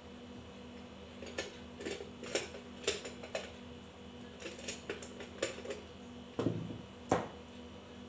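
Irregular metallic clicks and knocks from a ceiling fan's metal parts being handled and fitted together during assembly, the last two knocks near the end the heaviest, over a steady low hum.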